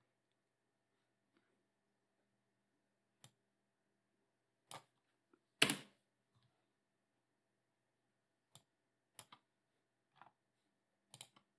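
Computer mouse and keyboard clicks while a file is edited in a web page: about seven separate, sharp clicks at irregular intervals, the loudest about halfway through.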